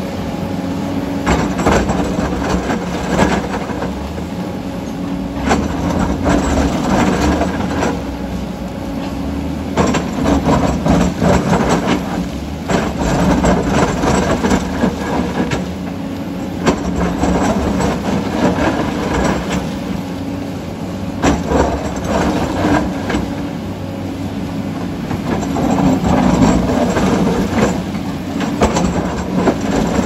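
MST crawler excavator's diesel engine running under load as the bucket digs into broken rock, with irregular clattering and scraping of stones every second or two.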